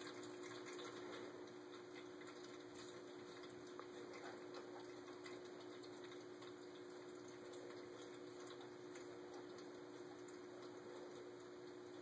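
Electric pet water fountain running faintly: a steady pump hum under a soft trickle of water, with a few faint ticks.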